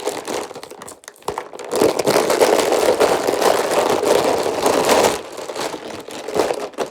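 Crinkling and rustling of packaging as it is handled, in dense crackly spells with scattered small clicks, heaviest in the middle.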